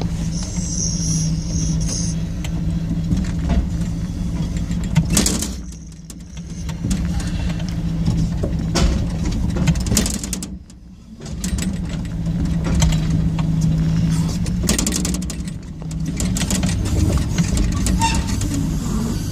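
Heavy vehicle's engine heard from inside the cab, working steadily under load as it pulls a timber trailer out of a ditch. It drops away sharply twice, about six and eleven seconds in, and then picks up again, with knocks and rattles throughout.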